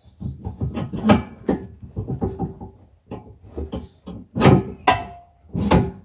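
A run of sharp wooden knocks and clunks as a sawmill's log clamp is unlocked and a sawn ash board is worked free of the bed, with the heaviest knocks in the second half.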